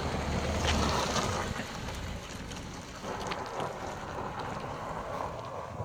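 Wind buffeting the microphone, strongest in a gust over the first second and a half, then easing to a steady rush.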